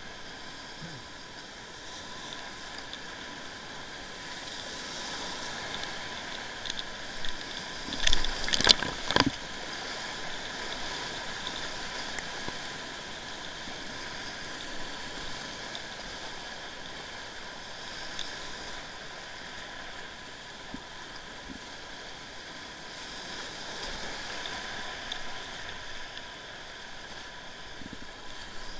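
Whitewater rapids rushing steadily around a kayak, heard close up from the paddler's seat, with the paddle working the water. A few loud splashes or knocks come together about eight to nine seconds in.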